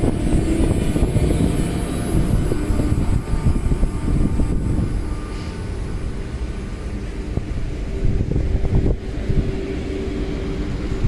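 Train running through the station: a loud low rumble with a steady hum on top, easing off slightly after a few seconds.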